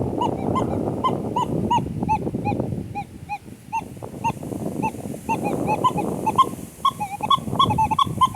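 Metal detector in pitch mode giving a rapid string of short chirps, several a second, each at a slightly different pitch, as the coil is swept over soil crowded with metal targets. A rushing noise runs underneath.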